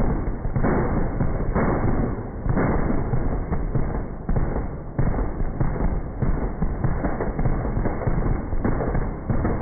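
M2 .50 BMG heavy machine gun firing, its audio slowed down with the high-speed footage so that the automatic fire is stretched into deep, drawn-out booms, about one a second.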